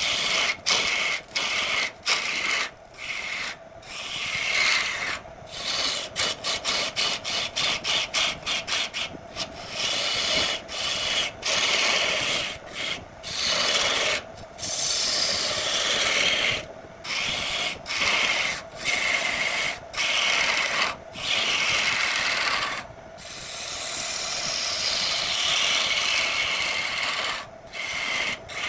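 Wood turning on a lathe with a tool or abrasive rubbing against the spinning piece, a dry scraping rasp. It stops and starts many times, in quick bursts of several a second about a quarter of the way in and in longer strokes later.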